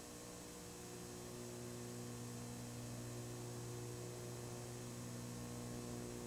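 Steady electrical mains hum, a buzz of even low tones that does not change, over faint hiss.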